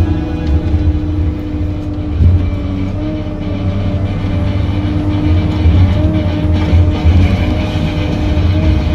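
Engine running steadily at a constant speed, with small dips in pitch and occasional clatter.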